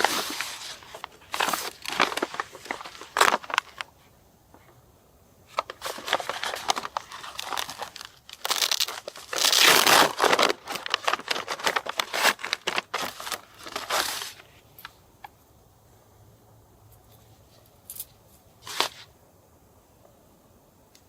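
Rustling and crinkling of material being handled, in bursts through the first two-thirds, then a couple of short sharp clicks near the end.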